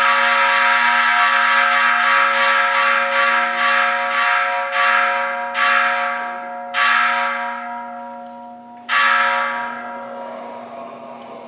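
Buddhist bowl bell (kin) struck again and again, quickly at first and then more slowly with ever longer gaps. Each stroke rings out clearly and fades away.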